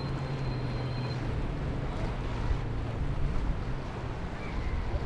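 A distant engine's steady drone that fades over the first second or so, over wind rumble on the microphone.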